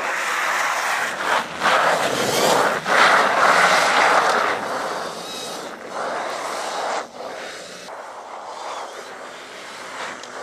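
Quantya electric off-road motorcycle riding on snow: a rushing noise from the drive and tyres on snow that swells and fades with the throttle, loudest in the first few seconds and dropping back after about seven seconds, with a faint whine bending up and down near the end.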